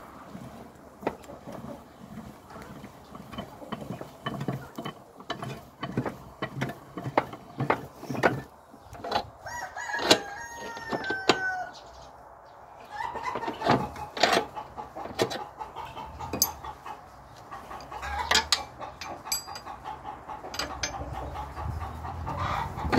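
A rooster crows about halfway through, and hens cluck. Through it come repeated sharp metallic clicks and knocks from the steel bar handle of a hand-turned screw press being worked round.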